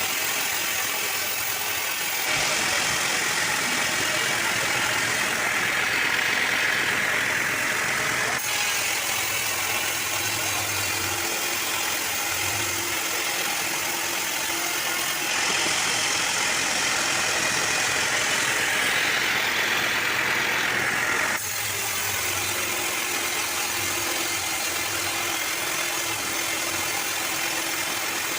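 Engine-driven sawmill machinery running steadily. The mechanical noise shifts suddenly in tone every six seconds or so.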